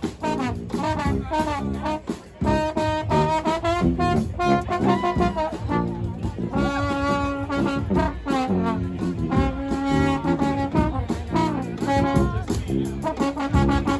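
Live brass band playing: horns sound punchy phrases and held notes over a steady drum beat, with a brief drop about two seconds in.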